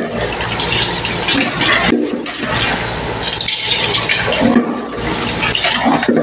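Tap water pouring and splashing into a small trash can and the sink basin as the can is rinsed and scrubbed with rubber-gloved hands. The rush of water is steady, with brief dips about two seconds in and again past four seconds.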